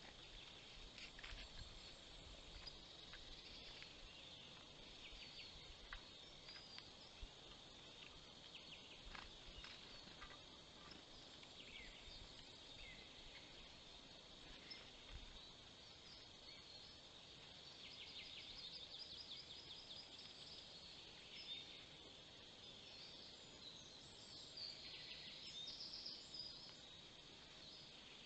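Faint songbird chorus: many short chirps and calls over a steady high hum of distant birdsong, with a rapid trill about two-thirds through and another near the end.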